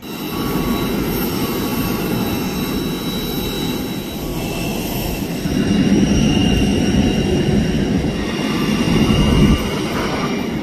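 Jet airliner noise on an airport apron: a steady low rumble with high engine whines held over it. It starts suddenly and grows louder about halfway through.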